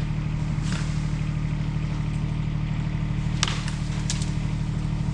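A steady low mechanical hum, like machinery running at idle, with a few faint clicks.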